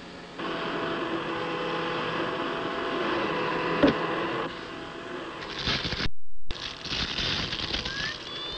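Upright vacuum cleaner switched on, its motor running with a steady whine for about four seconds before it stops. Near the end comes a scatter of small clicks and rattles.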